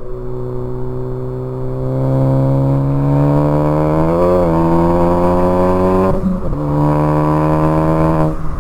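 A 2014 Ford Focus ST's turbocharged 2.0-litre four-cylinder accelerating hard through a Cobb cat-back exhaust and catless downpipe, its note climbing steadily. About six seconds in the note breaks briefly with a few clicks, as at an upshift, then climbs again and drops near the end.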